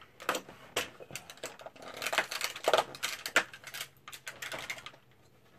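Cardboard advent calendar door being picked at and torn open along its perforations: a run of small clicks and crackles, busiest around two to three and a half seconds in.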